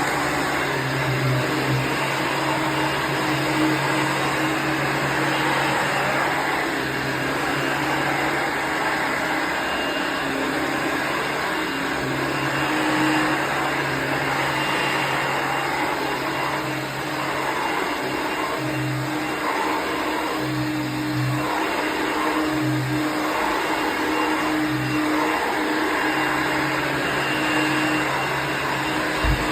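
Royal-made Dirt Devil Plus upright vacuum cleaner, an 8.7-amp machine, running steadily at full power, its low motor hum dropping in and out as it is used.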